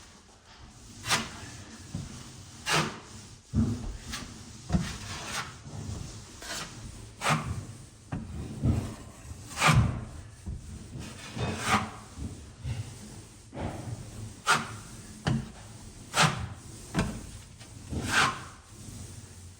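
Drywall knife spreading and smoothing joint compound over a taped drywall patch: repeated scraping strokes, roughly one a second.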